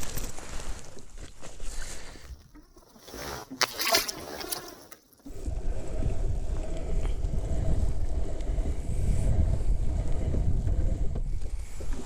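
Wind buffeting the microphone as a steady low rumble that sets in abruptly about five seconds in, after a few quieter seconds with a brief sharp noise near four seconds.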